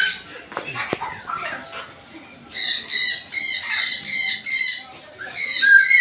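White cockatoos screeching: a run of harsh, rasping calls, about two a second, beginning about two and a half seconds in.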